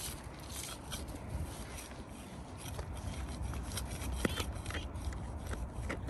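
Spade digging into soil: a run of irregular short scrapes and crunches, with wind rumbling on the microphone.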